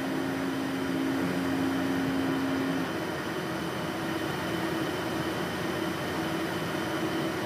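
Steady whir of precision air-conditioning machinery running, with a low hum tone that drops out about three seconds in.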